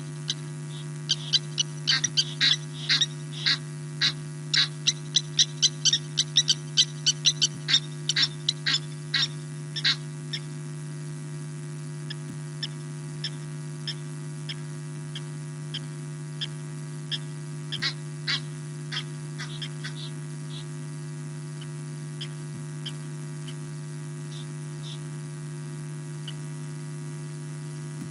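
Lapwings giving sharp, rapidly repeated alarm calls, upset by a civet: dense, several a second for the first ten seconds, then scattered. A steady electrical hum from the camera's sound fault runs underneath.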